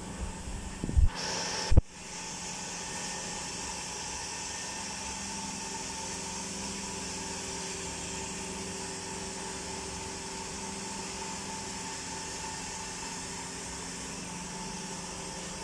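Effluent treatment plant machinery running: a steady hum with a few fixed tones and a high hiss. Two loud knocks come within the first two seconds.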